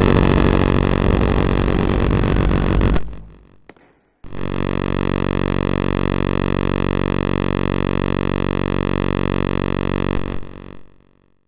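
Siren sounding a steady, buzzing tone that holds one pitch without rising or falling. It cuts off about three seconds in and starts again about a second later, holding for some six seconds before dying away.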